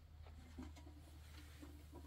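Near silence: a faint steady low hum, with a few faint short notes in the second half.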